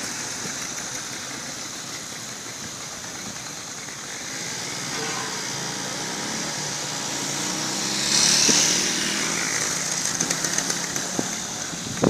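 Street traffic: motor vehicle engines running, with a motorcycle close by, and a vehicle passing that is loudest about eight seconds in.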